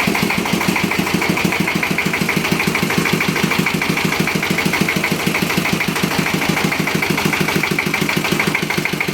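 Second-hand dompeng (Dongfeng-type single-cylinder diesel) engine powering a well-drilling rig, running steadily at idle with an even beat of about eight firings a second.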